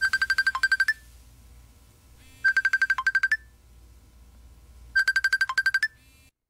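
Phone ringing with an electronic ringtone: three short bursts of rapid beeps on one high note, about two and a half seconds apart, each ending on a quick upward blip. The call is not yet answered.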